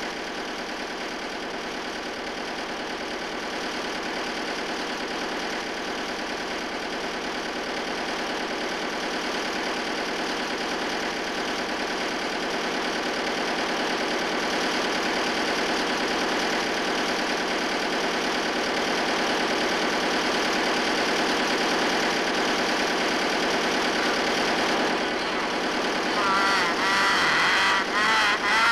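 Ship's engine running steadily in its engine room, growing gradually louder. A wavering, warbling sound joins near the end.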